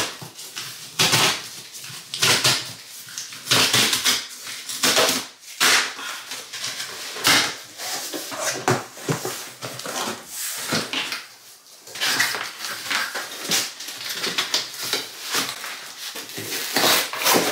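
Cardboard shipping box being opened by hand: a tear strip ripped along the top, then flaps and a cardboard insert lifted and pushed about, giving a run of irregular tearing, scraping and rustling noises.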